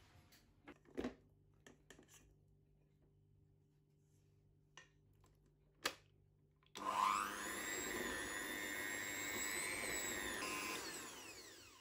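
A few light knocks, then, about two-thirds of the way in, a Kenwood Chefette mixer starts suddenly and runs at medium-high speed with a steady whine, beating softened butter. Near the end it is switched off and its pitch falls as the motor runs down.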